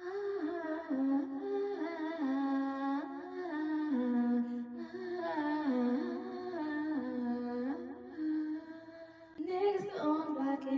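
A woman's voice humming a slow wordless melody, with long held notes that slide between pitches.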